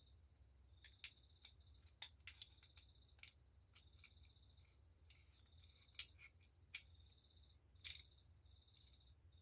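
Sharp metallic clicks and light scraping as the steel slide and parts of a Series 70 Colt 1911 pistol are handled and fitted onto the frame: about eight irregular clicks, the loudest ones in the second half.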